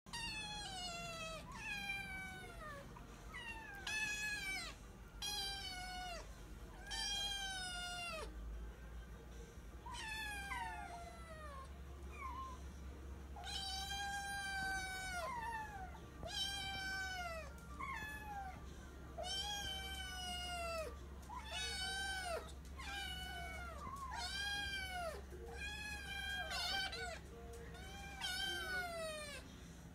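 Kittens meowing over and over, high calls that mostly fall or arch in pitch, about one a second, sometimes two overlapping.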